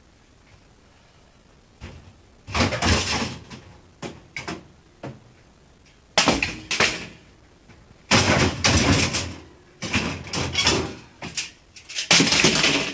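Irregular bursts of knocking and clattering, several loud spells of a second or so with short gaps between, as parts of an old refrigerator are pulled and broken apart.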